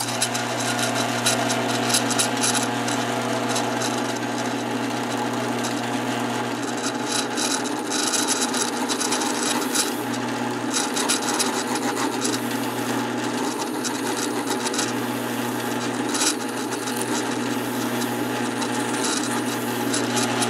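Drill press switching on and running with a steady motor hum while its bit bores a hole through a quarter-inch oak wheel, the cutting heard as a rough, rasping scrape that comes and goes.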